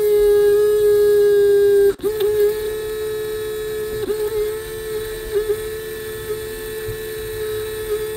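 Vortex mixer's electric motor running with a bottle of paint pressed onto its spinning cup, a steady hum, to shake loose pigment settled in the bottle. The hum dips briefly about two seconds in, then runs on a little quieter.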